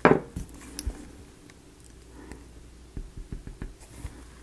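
Small tabletop handling sounds of model-building tools. A sharp knock comes right at the start, then light clicks and taps as tweezers and a plastic glue bottle are handled, with a quick run of small ticks around three seconds in.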